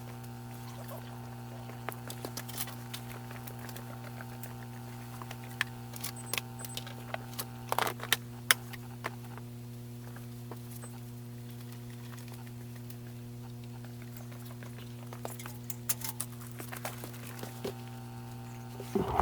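A steady low hum runs under scattered small clicks and rustles of handling, which come in clusters about two seconds in, between six and nine seconds, and again near the end.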